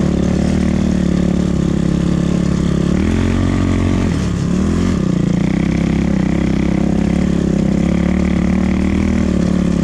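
250cc enduro motorcycle engine running steadily under way, with a brief rev up about three seconds in and a dip in revs a second later before it settles back.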